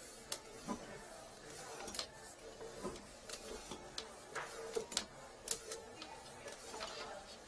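Irregular clicks and light knocks as a drain inspection camera's push cable is fed off its reel into a drain pipe, over a faint steady hum.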